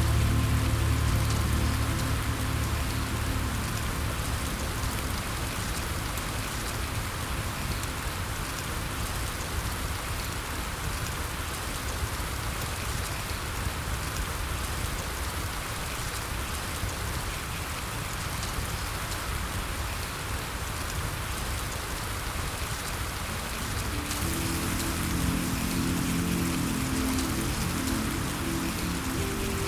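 Steady rain hiss with patter of drops. Soft low sustained music notes fade out in the first couple of seconds and come back about 24 seconds in.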